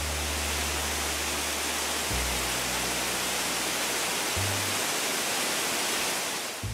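Steady rush of water gushing out of a tanker truck's hose as its tank empties, a cartoon sound effect, over background music with low sustained bass notes.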